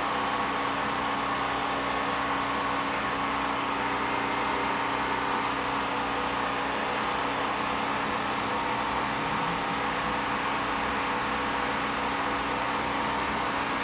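Steady, unchanging hum and rumble of an open-air subway station, with a few faint held tones, while a train is still far down the line.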